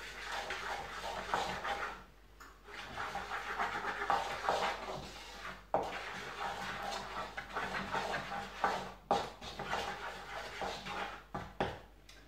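Wooden spatula stirring and scraping a frying spice paste with egg in a wok, in uneven strokes, with a few sharp knocks of the spatula against the pan in the second half.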